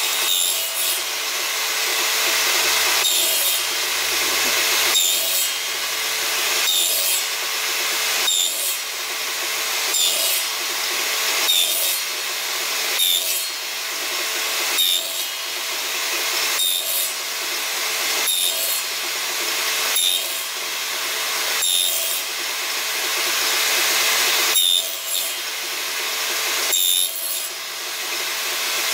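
Table saw running steadily while the end of a board is pushed through the blade again and again, each pass cutting another narrow kerf for box-joint fingers. A rasping cut comes about every one and a half to two seconds, with the motor's steady hum between.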